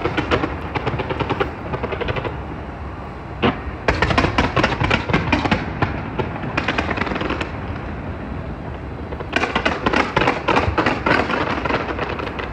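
Fireworks going off in dense, rapid volleys of crackling pops and bangs. The volleys thin out about two seconds in, with a single sharp crack, and again past the middle, then come back just as dense.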